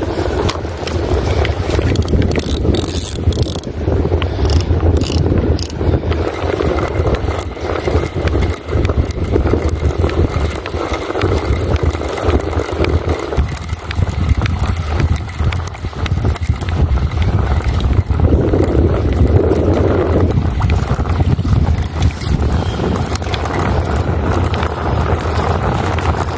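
Boat motor running steadily, with wind buffeting the microphone.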